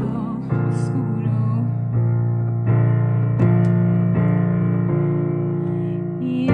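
Digital piano playing a slow run of sustained chords, a new chord struck roughly every three-quarters of a second.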